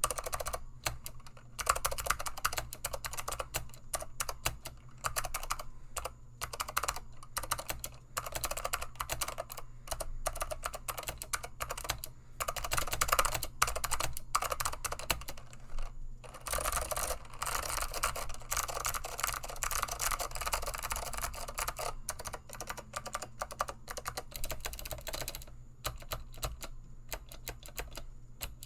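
Fast continuous typing on a DeltaGold Advanced keyboard with clicky blue Alps switches, a dense stream of sharp keystroke clicks. There is a brief pause about halfway through, and the keystrokes thin out near the end.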